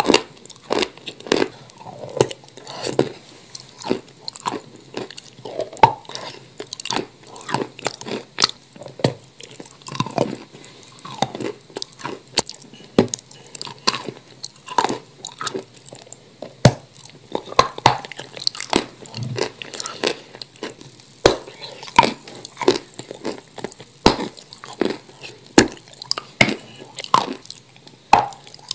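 Biting and chewing crunchy chunks of water-soaked chalk: irregular sharp crunches, about one or two a second.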